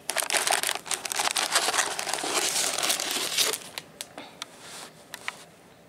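Tissue paper and a cellophane bag crinkling and rustling as hands rummage through a packed box, for about three and a half seconds, followed by a few scattered crackles.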